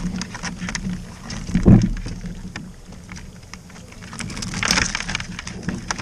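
Water splashing and dripping on a kayak, with scattered knocks against the hull, a heavier thump a little under two seconds in, and a splash near the end.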